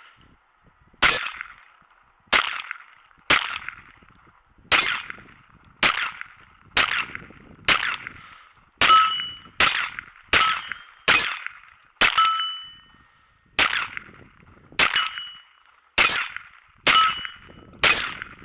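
Glock 44 .22 LR pistol firing about seventeen shots in quick succession, roughly one a second and unevenly spaced, with CCI Standard Velocity ammunition feeding from an 18-round Pro Mag magazine. Several of the shots are followed by a brief metallic ring.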